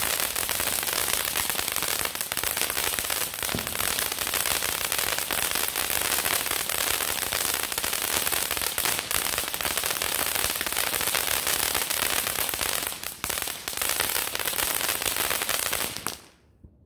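Ground fountain firework spraying sparks: a steady loud hiss thick with rapid crackling, which cuts off shortly before the end.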